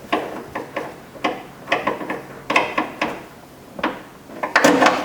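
Irregular light clicks and knocks of metal and plastic parts being handled at a car door's exterior handle mounting.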